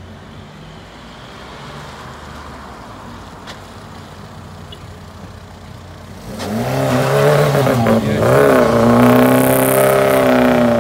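Car engine running at low revs, then from about six seconds in it revs hard close by, its pitch dipping and climbing before holding high as the car pulls away.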